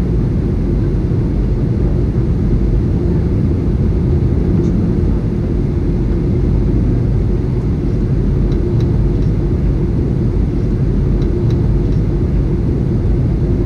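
Steady low rumble of an Airbus A320's engines and airflow heard from inside the passenger cabin on final approach.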